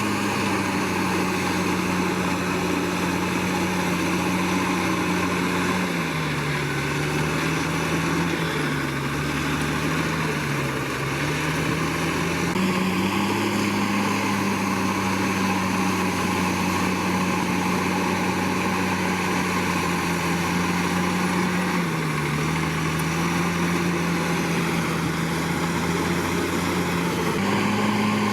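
Komatsu D61PX bulldozer's diesel engine running at high revs, its pitch sagging and recovering twice, the sign of the engine pulling down under load as the blade pushes earth.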